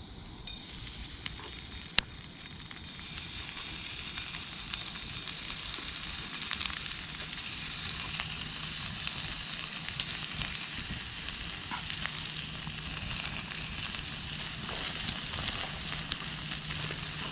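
Formed meat sizzling over a campfire, its fat hissing with scattered crackles and pops, one sharp pop about two seconds in. The sizzle slowly grows louder: the fire is too hot and the meat is starting to burn.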